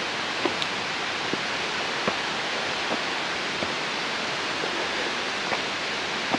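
Water rushing steadily through a waterfall flume, an even hiss of falling water, with a few faint ticks scattered through it.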